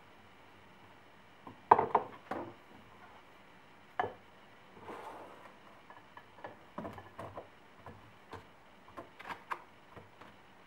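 Strawberries tipped off a plastic cutting board into a ceramic bowl, with the board knocking against the bowl. A cluster of sharp knocks comes about two seconds in and another at four seconds, then a string of lighter thuds and clicks as the berries drop into the bowl.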